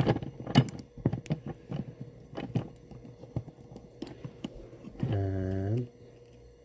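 Irregular clicks and taps of an Allen wrench turning the clamp bolt of a small metal bike bell, tightening it down; the loudest come in the first second.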